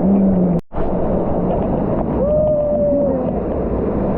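Steady rushing of a hill stream's flowing water, cut off briefly just after half a second. About two seconds in, a person gives a long drawn-out call lasting about a second.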